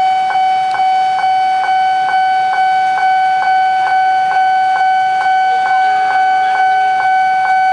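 Railroad crossing warning bell ringing continuously, a steady ringing tone re-struck evenly a little over twice a second: the crossing alarm that warns of an approaching train.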